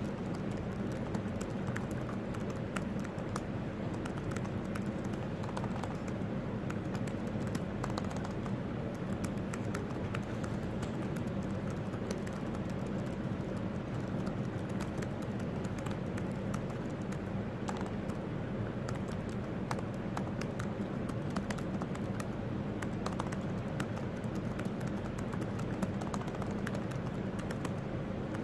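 Typing on a laptop keyboard: a dense, irregular stream of quick key clicks, over a steady low room hum.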